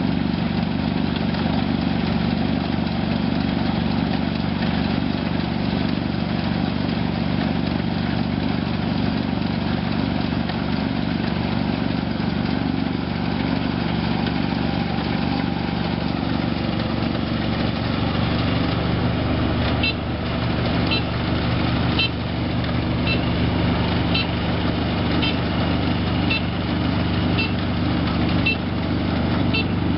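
Rice combine harvester's engine running steadily as it works the field. From about two-thirds of the way in, a short high beep repeats roughly once a second.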